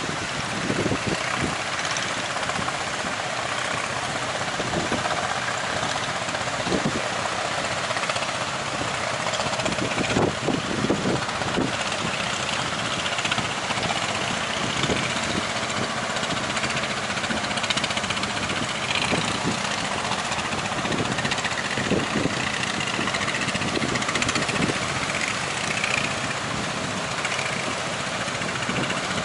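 Fishing boat engine running steadily, mixed with wind and surf noise and scattered low thumps.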